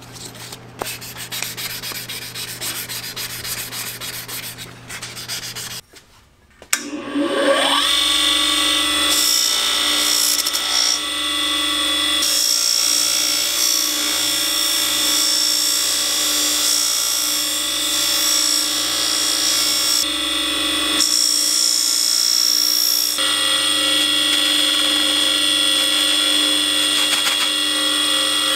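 Steel screwdriver shaft wet-sanded by hand on sandpaper, a run of rubbing strokes. After a short gap about six seconds in, an electric bench buffer motor spins up with a rising whine and runs steadily while the steel is polished against its spinning buffing wheel.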